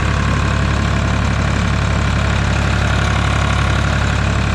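Ford 2810 tractor's engine running steadily under load, heard from the driver's seat as it pushes snow with a front-mounted plow.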